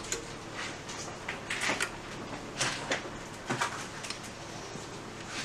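Scattered clicks and knocks as a repaired KTE starter module is handled and its start and stop buttons are pressed during a bench test, over a steady low hum.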